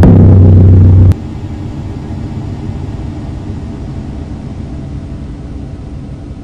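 Electronic noise music: a loud, low, steady drone with a sharp hit at the start. The drone cuts off suddenly about a second in, leaving a quieter low rumbling noise that slowly fades.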